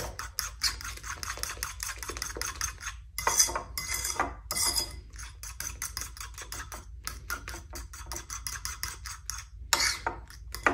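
A metal fork beats mashed banana and egg whites in a ceramic bowl: quick, steady clinks and scrapes against the bowl, several a second, with a few louder clinks near the end.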